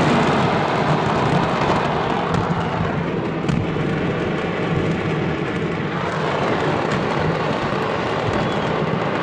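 Continuous rumble and dense crackling of a fireworks market going up in a chain of explosions, heard from inside a car with its steady low hum underneath.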